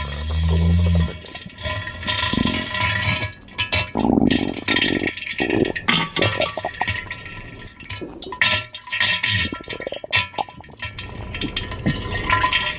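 Comedy pooping, farting and diarrhea sound effect. A low buzzing fart in the first second is followed by a long run of irregular wet splattering, gushing and splashing noises.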